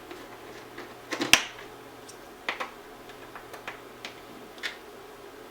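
Sharp small clicks and taps from small screws and a tool being handled as they are driven in. A cluster about a second in is the loudest, followed by a few single clicks spaced out.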